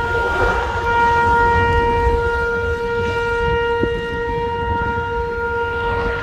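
A horn blaring continuously at one steady pitch, over a low rumble.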